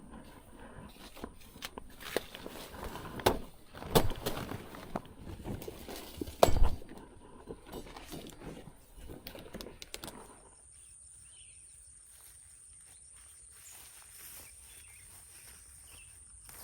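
Irregular knocks, clicks and scrapes for about ten seconds, with a few louder hits, then only faint outdoor background.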